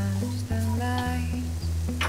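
Background music with held pitched notes over a steady bass line, with faint sizzling of scrambled eggs in a frying pan underneath.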